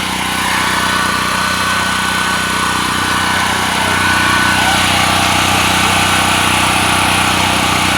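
Generac GP6500 portable generator's engine running steadily and loud, getting a little louder about halfway through.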